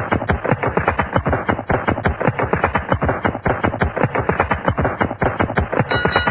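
A rapid, steady clatter of sharp knocks, roughly ten a second. A ringing, bell-like tone comes in just before the end.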